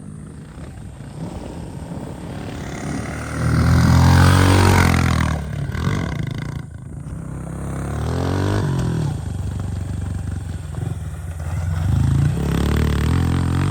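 Honda CRF110 pit bike's small single-cylinder four-stroke engine revving up and down under riding, in several surges, the loudest about four seconds in.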